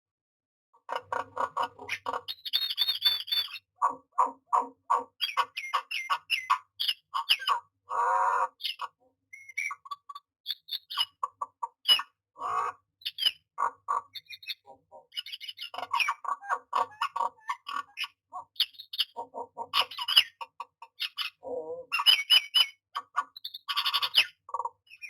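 Common myna calling: a long run of harsh squawks, chattering notes and short whistles, starting about a second in.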